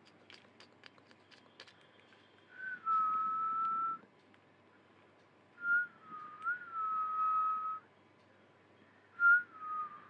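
Three clear whistled notes. The first lasts about a second and a half, the second about two seconds with a small rise in pitch partway through, and the third is short, near the end. Each starts with a brief upward flick, then holds a steady pitch.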